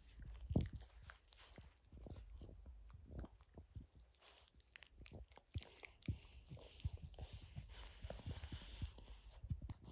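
Yorkshire Terrier nibbling and mouthing at a French Bulldog's face: faint, irregular wet clicks and smacks of a dog's mouth, with a slightly louder one about half a second in.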